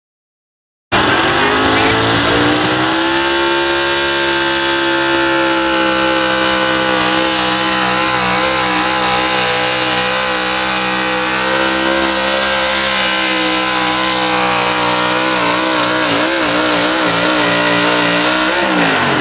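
Stock-class 4x4 pulling truck's engine running at high revs under heavy load as it drags a weight sled, starting about a second in. The pitch climbs over the first couple of seconds, holds steady through the pull, then falls away near the end as the truck comes off the throttle.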